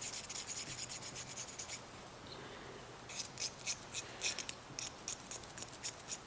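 Needle file scraping back and forth on the thin steel of a homemade lock pick cut from a windshield wiper insert, deburring and smoothing the hook. Quick strokes, about five a second, pausing for about a second after the first two seconds, then starting again.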